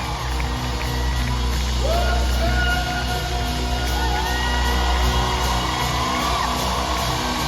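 Live band music at arena volume, with the crowd cheering and whooping over it.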